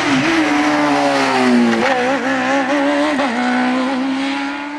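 Single-seater racing car's engine running under power. Its pitch falls over the first couple of seconds, jumps back up, wavers, then holds steady and starts to fade near the end.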